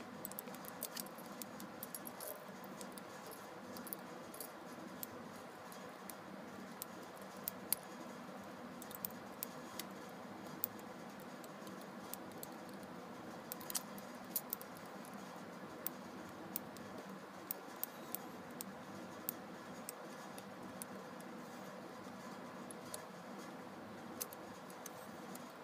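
Small sharp clicks at irregular intervals, one to two a second, from a momentary switch pulsing battery current through kanthal wire as it is wound red-hot into a coil. Under them runs a faint steady hum.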